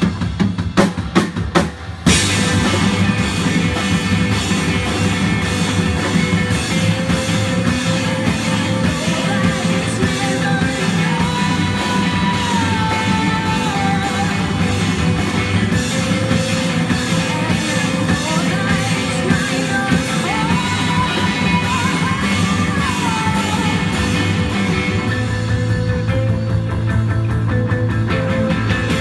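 Live rock band playing with drum kit, electric guitar, electric bass and keyboard. It opens with a few sharp, separated hits, then the full band plays on steadily. A sliding high melody line rises and falls over it twice midway.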